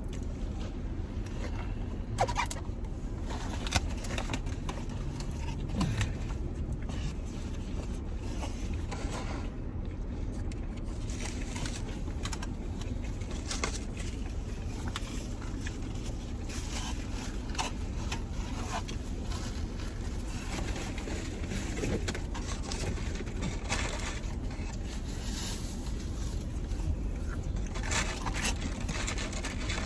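Steady low rumble of a car interior, with scattered crinkles, clicks and rustles of fast-food wrappers and boxes being handled during eating.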